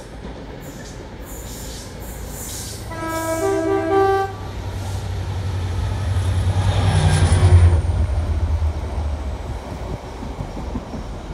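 Class 66 diesel freight locomotive sounding its two-tone horn for about a second, a lower note stepping up to a higher one, about three seconds in. Its engine rumble then grows to its loudest as it passes beneath, about seven seconds in, and eases as the empty box wagons run past.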